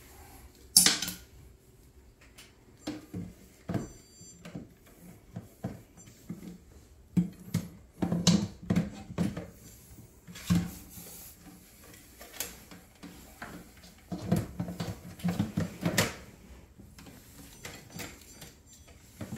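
Irregular plastic knocks and clicks as a hang-on-back aquarium filter is handled and fitted onto the rim of a glass tank, with a sharper knock about a second in.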